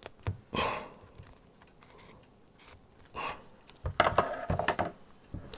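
Scissors cutting a small piece of sticky RV roof-repair tape, with brief rustles from the tape being handled, then a run of snips and clicks about four seconds in.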